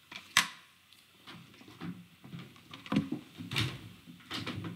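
Desk handling noises close to the microphone: one sharp click about half a second in, then scattered soft knocks and rustles of objects being moved.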